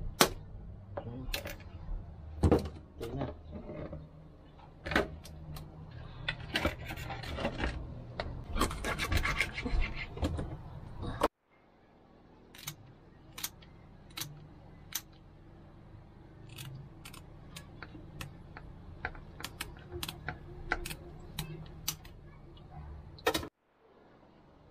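Knife scraping and handling a fish in a metal sink, with rasping scrapes and sharp clicks. It is followed, after a cut, by kitchen scissors snipping fins and trimming a scaled fish, heard as scattered short sharp snips.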